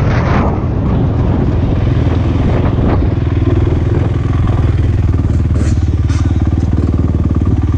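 Honda TRX450R quad's single-cylinder four-stroke engine running under the rider, with wind rush on the microphone for the first few seconds. From about three seconds in, the engine settles to a steady, even run, with a couple of brief clicks near the end.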